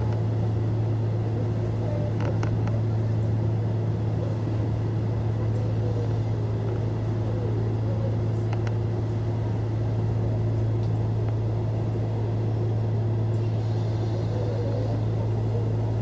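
Steady low hum and constant noise inside the passenger car of a Nishitetsu Tenjin-Ōmuta Line express train, with a few faint clicks.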